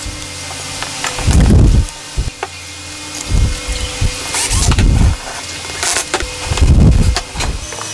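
Wooden chair parts knocking and clattering on a wooden workbench. A cordless drill runs in short bursts of about half a second each, several times.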